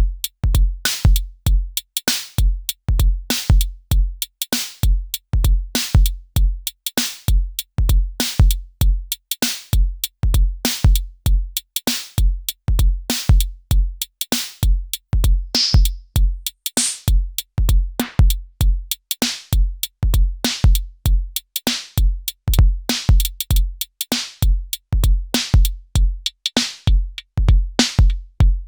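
Elektron Syntakt drum machine playing a looping electronic drum pattern: a deep kick drum under sharp, crisp percussion hits, with a couple of brief high tones about halfway through.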